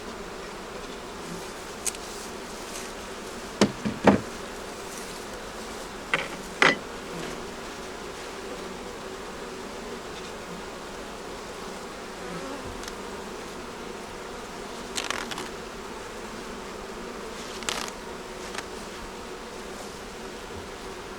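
Honey bee colony buzzing steadily from an open hive, with a few sharp knocks and clunks as wooden hive parts are handled: a loud cluster around four seconds in, a pair a couple of seconds later, and softer ones later on.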